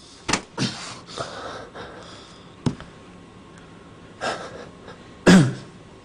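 Short grunts, gasps and sharp breaths from men scuffling, in separate bursts, the loudest a falling grunt near the end, with a brief knock in the middle.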